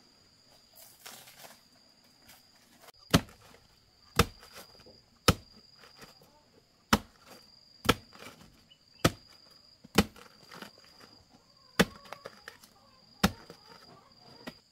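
Nine sharp chopping blows, about one a second, a blade cutting into a banana plant, over a steady high chirring of insects.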